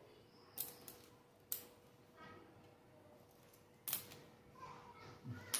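Homemade battery-cell spot welder firing: four sharp snaps, irregularly spaced about one to two and a half seconds apart, over a faint steady hum.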